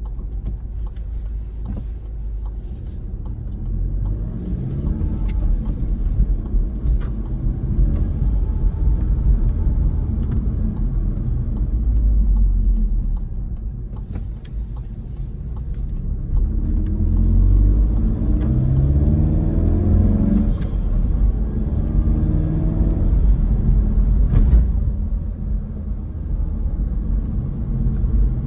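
2018 VW GTI Mk7.5's turbocharged EA888 four-cylinder, fitted with a BMS Elite intake and turbo muffler delete, heard from inside the cabin while accelerating. The engine note rises in pitch and drops back at gear changes, with two strong pulls, one a few seconds in and one past the middle, and a few short hissing bursts along the way.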